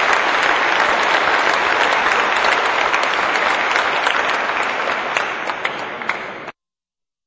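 Audience applauding, a dense patter of many hands clapping, easing off slightly and then cut off abruptly near the end.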